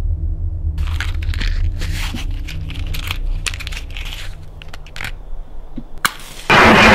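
A steady low rumble with irregular crackling, crunching noises and sharp clicks over it; near the end the rumble drops away and a loud rushing noise cuts in suddenly.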